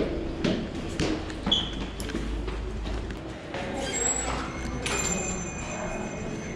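Footsteps in a stairwell, about two a second at first, with clothing brushing the microphone. A short high beep comes about one and a half seconds in, and thin steady high tones set in about five seconds in.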